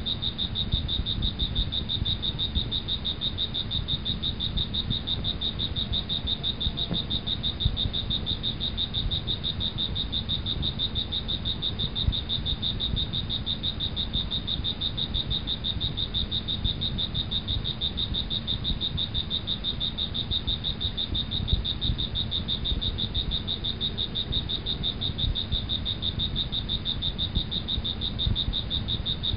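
Steady night chorus of insects and frogs: a continuous high, fast-pulsing trill over a low, uneven rumble, with no break or change.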